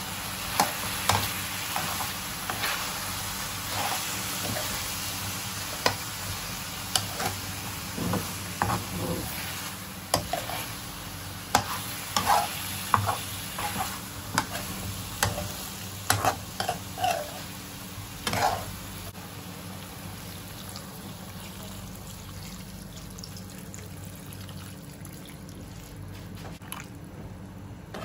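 Metal spoon scraping and knocking against a frying pan as chunks of chicken and bottle gourd are stirred, over a steady sizzle. The clatter of stirring thins out about two-thirds of the way through, leaving mostly the quieter sizzle.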